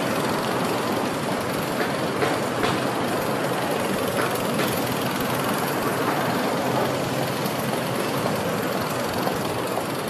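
Construction-site noise: a steady mechanical din with a few short knocks scattered through it.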